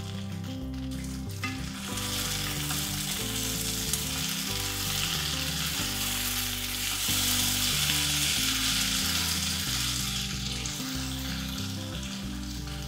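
Diced vegetables and butter sizzling in a nonstick pot as they are stirred with a spatula. The sizzle starts about a second and a half in, is loudest in the middle and eases near the end, over background music with a low bass line.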